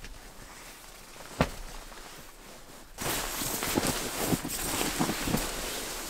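Footsteps and rustling with scattered knocks: one sharp knock about a second and a half in, then from halfway a sudden louder, busier stretch of knocks and rustling.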